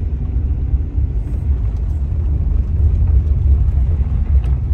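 Steady low rumble with a faint hiss above it.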